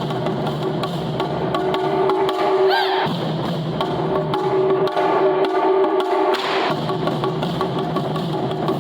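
Taiko drumming music: rapid wooden clicks and drum strikes over steady sustained tones.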